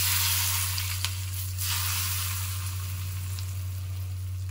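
Hot mustard-oil tempering (tadka) with nigella seeds, mustard seeds and asafoetida sizzling as it is poured over raw mango slices. The sizzle is strongest in the first second and a half, then dies down.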